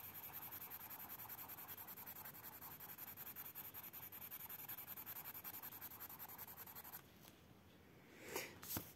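Derwent colourless blender pencil rubbing in quick back-and-forth strokes over layered pink coloured pencil on paper, a steady scratchy drag that stops about 7 s in. Two brief clicks follow near the end.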